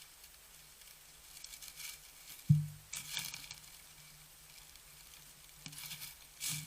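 An animal's footsteps crunching and rustling in an irregular pattern, with one sharp thump about two and a half seconds in.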